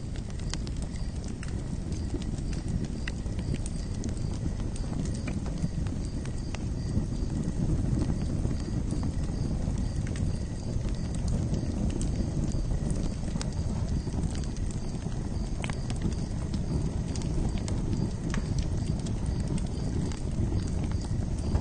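Campfire crackling: a steady low rush of burning wood with many small, irregular pops and snaps scattered throughout.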